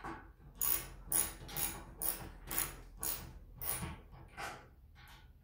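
Ratchet wrench worked back and forth to tighten a bolt in a wooden 2x4 frame: about eight ratcheting strokes, roughly two a second, stopping about four and a half seconds in.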